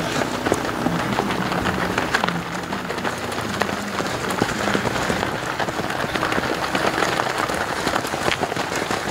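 Dense, rapid patter of many footfalls as a large pack of cross-country runners passes close by on grass and gravel, mixed with scattered spectator clapping.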